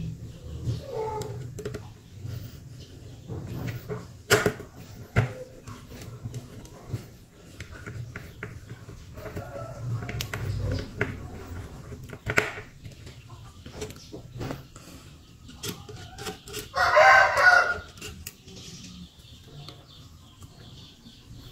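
A rooster crows once, loud, about three-quarters of the way through. Around it, scattered light clicks and taps as power transistors are handled and fitted on an aluminium heatsink, over a low steady hum.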